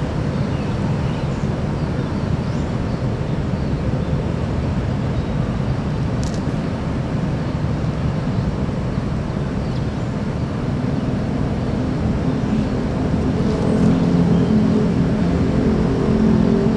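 Diesel bus engines running with a steady low rumble. About two-thirds of the way through, a nearby engine's hum comes up and grows louder toward the end.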